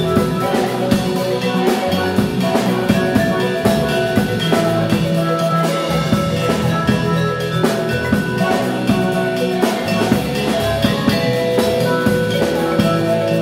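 Percussion ensemble playing: mallet melodies on marimbas over a drum-kit groove with cymbal strikes, many pitched notes ringing together.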